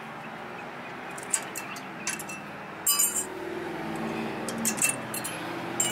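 Light metallic clinks and scrapes as an old front brake pad is worked out of a 2010 Honda Civic's caliper bracket: a handful of short clinks, the sharpest cluster about halfway through, over a low steady hum.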